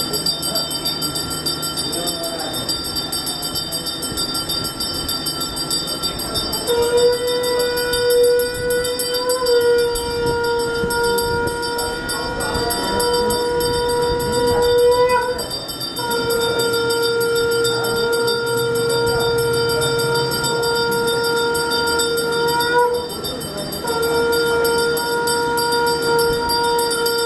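A puja bell rings rapidly and without pause. From about seven seconds in, a conch shell is blown in long steady notes, with two short breaks for breath.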